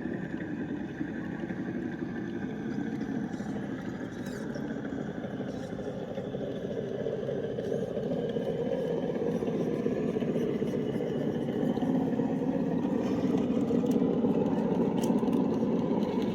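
Electric motor and gearbox of a radio-controlled crawler truck whining steadily as it crawls, getting louder over the second half.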